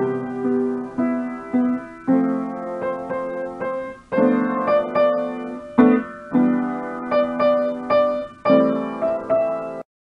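Outro music: a piano piece played in repeated chords and short melodic phrases, which cuts off abruptly near the end.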